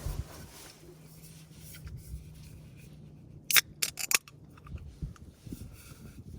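Handling of a foil ready-meal pouch and spoon: a quick run of sharp clicks and crinkles about three and a half seconds in, with a few soft knocks after, over a faint steady hum.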